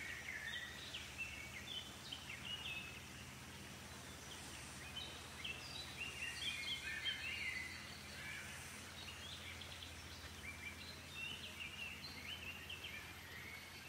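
Several birds chirping and calling in short, quick, stepping phrases that overlap all the while, busiest midway, over a faint steady low hum.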